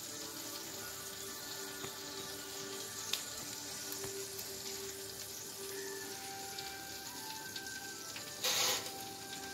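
Soft background music with slow, held notes over a steady sizzling hiss of duck fat in a rotisserie oven. A short, loud burst of hiss comes about eight and a half seconds in.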